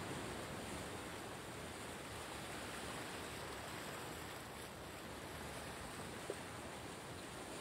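Faint, steady outdoor ambience of wind and distant surf, with one small click about six seconds in.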